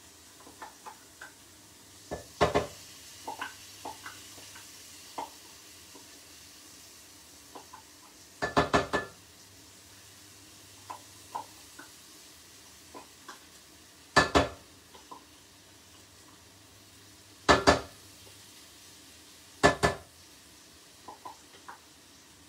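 Spice paste being scraped from a container into a cooking pot: five loud clusters of sharp knocks against the pot, a few seconds apart, with lighter scrapes and taps in between.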